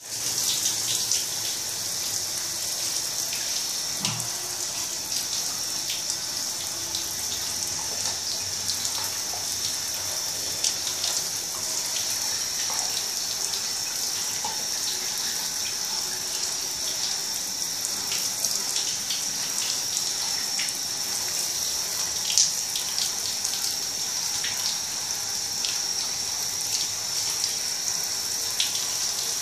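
Shower spray running onto shoes and a wet floor: a steady hiss of falling water with small splashes, and one sharper click about two-thirds of the way through.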